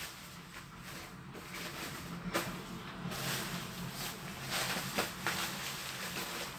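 Rustling and crinkling of a light nylon windbreaker being handled and spread out by hand, with a couple of sharper rustles.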